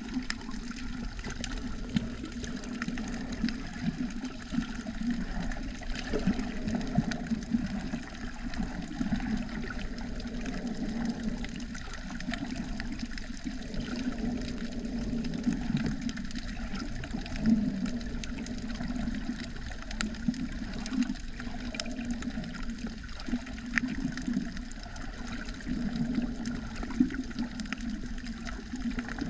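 Sea water moving and sloshing, recorded underwater, as a steady rush with scattered small clicks and crackles.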